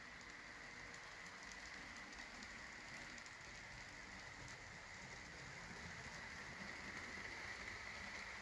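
Bachmann HO-scale EMD F7 model locomotive running under load with a long train of freight cars: a faint, steady whir and hiss of its motor and the wheels on the track, growing slightly louder near the end.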